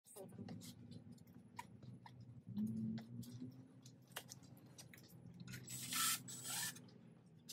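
Engine break-in oil poured from a plastic quart bottle over the camshafts and lifters of a rebuilt 4G63 cylinder head, lubricating the valvetrain during assembly before first start. It is faint, with small clicks, and a short hiss about six seconds in.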